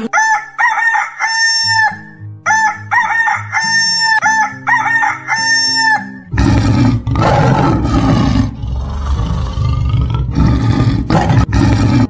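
Rooster crowing cock-a-doodle-doo three times in a row, each crow a few short notes ending in a long held one. About halfway through it gives way to a loud, rough noise that lasts to the end.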